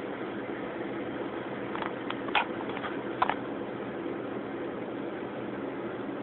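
A steady mechanical hum, with a few short clicks about two to three seconds in.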